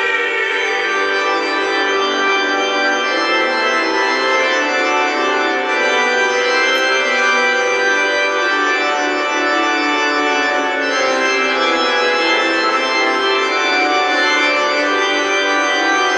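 Church organ playing sustained chords, an instrumental passage between sung verses of a hymn.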